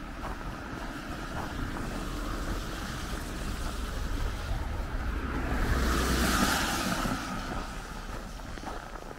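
A vehicle passing by on the road, its tyre and engine noise swelling to the loudest about six seconds in and then fading, over a steady hum of traffic.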